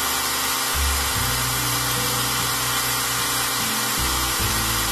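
Belt grinder running with a steady, even whirring hiss as a wooden knife handle is shaped on its sanding belt.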